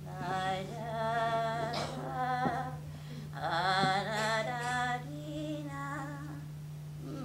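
A woman's voice singing wordless held notes with a wavering vibrato, in a few phrases, the last one lower and flatter. A steady low electrical hum runs underneath.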